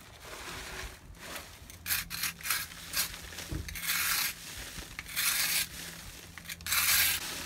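Draper four-sided bladed hand scraper stripping old antifouling paint off a boat's keel in repeated rasping strokes. A few short quick strokes come about two seconds in, then longer, harder strokes, the loudest near the end.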